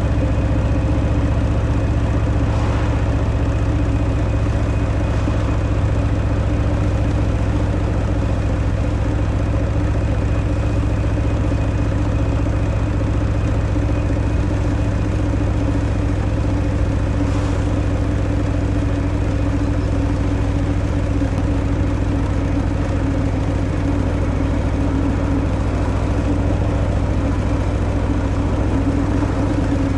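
Harley-Davidson Fat Boy's Milwaukee-Eight 114 V-twin running through its stock exhaust, holding a steady, even engine note with no revving.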